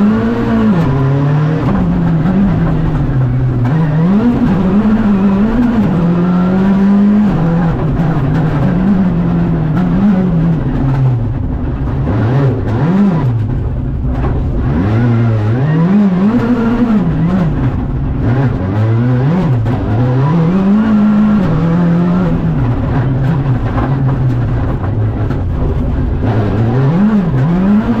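Škoda Fabia Rally2 Evo's 1.6-litre turbocharged four-cylinder engine heard from inside the cabin, its revs climbing and dropping again and again as the car accelerates, brakes and shifts through low gears in tight corners.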